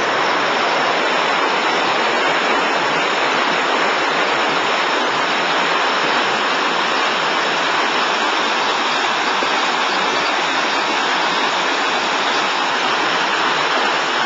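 Chain of Rocks rapids on the Mississippi River: water rushing steadily over the rocks, a continuous even hiss of white water.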